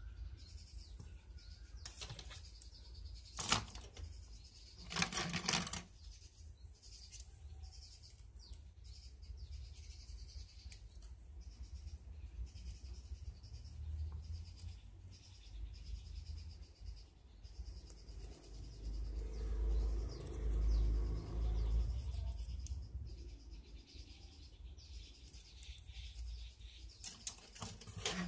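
Black plastic model-kit runners being handled, with scattered light plastic clicks and rattles; the loudest are a couple of sharp clicks and a short rattle in the first six seconds. A low rumble swells and fades about two-thirds of the way through.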